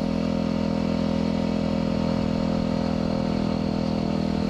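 Yamaha WR250R's 250 cc single-cylinder four-stroke engine running at a steady pitch while the motorcycle cruises at a constant speed.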